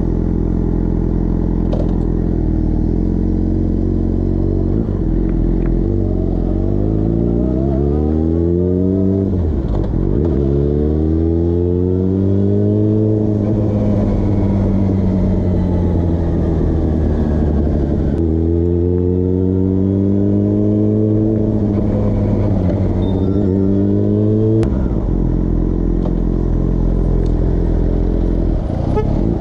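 Motorcycle engine running, first at a steady low pitch, then climbing in pitch as it accelerates, about four times over with the pitch falling back between pulls, and dropping suddenly back to a steady low pitch near the end.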